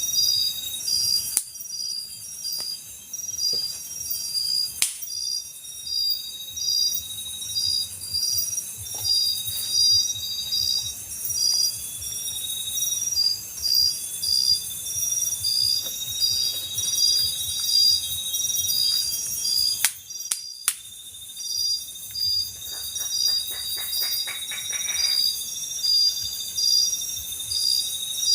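Crickets and other insects chirping: a high pulsed chirp repeating about once or twice a second over a steady high trill and hiss. A few sharp clicks are heard, and a brief rapid rattle comes in the last third.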